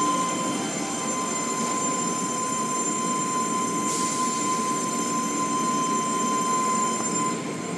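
Automatic car wash heard from inside the car: water spray and cloth brushes washing over the body and windows, over the steady noise of the wash machinery, with a thin steady whine.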